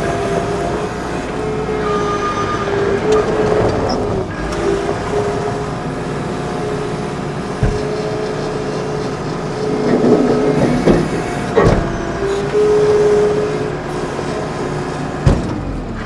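Case SR220 skid steer's diesel engine running with a steady hydraulic whine that rises and falls as the loader manoeuvres and works its arms to pick up its bucket, with a few sharp knocks, the last near the end.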